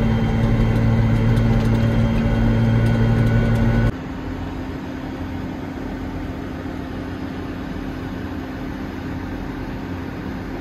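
Case IH Magnum tractor engine running steadily under load, heard from inside the cab. About four seconds in it cuts to a quieter, steady idle of field machinery outdoors.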